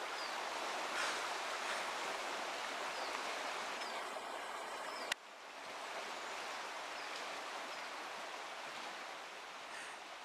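Steady rush of the river Sil's flowing water. A single sharp click comes about five seconds in, and the rush is briefly quieter after it.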